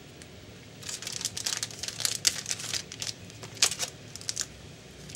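Trading cards being handled and peeled apart: a run of quick rustles and clicks starting about a second in, the cards sticking together.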